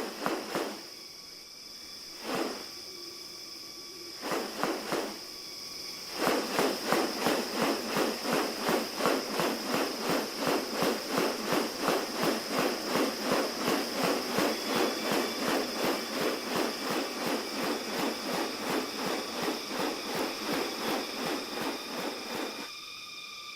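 Rainforest sound with a steady high-pitched insect drone. A few separate sharp knocks come in the first seconds. From about six seconds in until near the end, a fast, even pulsing repeats about three times a second.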